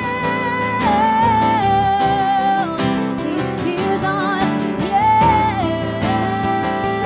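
A woman's voice singing a country song live, holding long notes that step down in pitch, over a strummed acoustic guitar.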